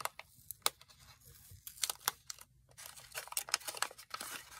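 Small paper box holding a roll of washi tape being opened by hand: scattered clicks and crackles of the packaging being peeled and pulled, turning to denser crinkling in the second half.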